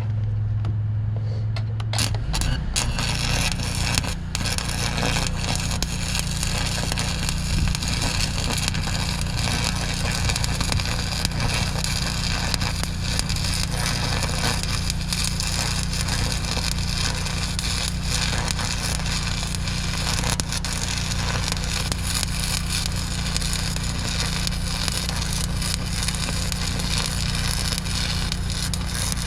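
Stick welder arc crackling and sputtering steadily as a flux-coated steel rod burns down into the weld. It starts about two seconds in, after a steady hum.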